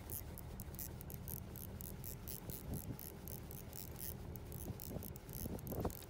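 Fishing reel being wound, its mechanism giving a rapid, even clicking, over a steady low rumble.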